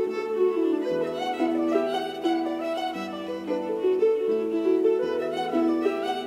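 Background instrumental music: a melody of changing notes over lower bass notes.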